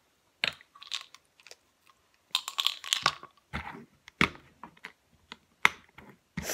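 Sharp plastic clicks and taps of prescription pill bottles, caps and pills being handled while a pill organizer is filled. There is a quick flurry of clicks about two and a half seconds in, and single clicks follow every half second or so.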